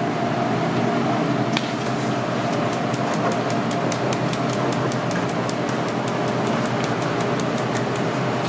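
A handheld metal mesh sieve being knocked to sift flour into a stainless steel bowl: a rapid run of light ticks, about five a second, starting a couple of seconds in, over a steady kitchen hum.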